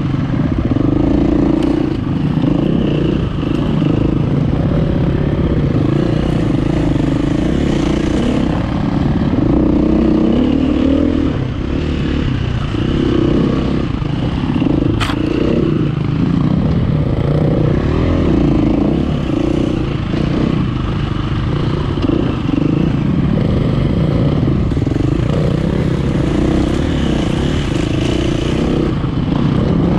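Enduro dirt bike engine running hard and revving up and down as the bike is ridden over a rough, twisting forest trail, with clattering from the bike over the ground. There is a single sharp click about halfway through.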